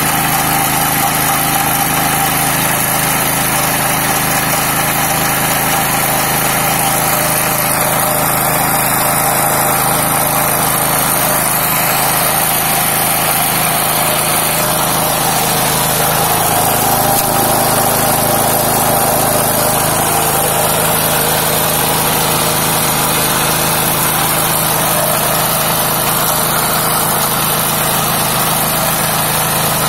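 Small single-cylinder stationary engine running steadily under load, driving a grinder that is milling black soldier fly maggots into paste.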